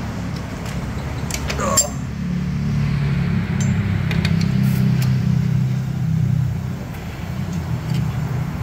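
Gas welding torch burning steadily while an exhaust pipe is welded, a low steady roar that grows louder after about two seconds. A few light metallic clinks come about one and a half seconds in.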